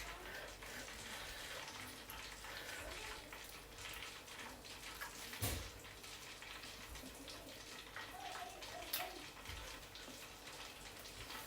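Faint steady hiss of kitchen room noise, with one sharp click about halfway through and a softer one later.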